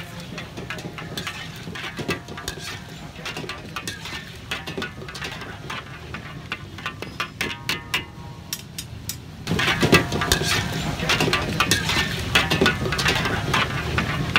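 Metal spatula clinking and scraping against a karahi wok as meat karahi is stirred, with quick irregular clinks that get louder and busier about two-thirds of the way through.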